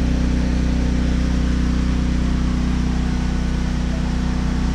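A 7000-running-watt gasoline generator running with a loud, steady drone that holds the same pitch throughout, under the load of the aquarium pumps.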